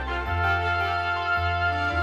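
Instrumental soundtrack music: sustained keyboard chords over a bass line that changes note about once a second.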